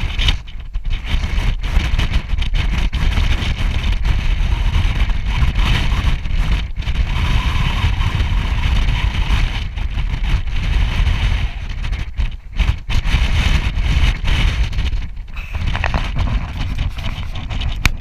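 Strong wind buffeting the camera's microphone on an exposed clifftop: a loud, uneven low rumble that swells and drops in gusts, with a few brief lulls.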